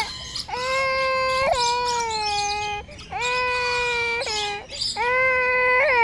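A young child crying in three long, drawn-out wails, each held at a steady pitch for one to two seconds with short breaths between.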